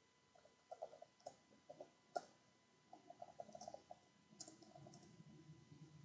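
Faint computer keyboard typing: uneven runs of soft key clicks with short pauses between them.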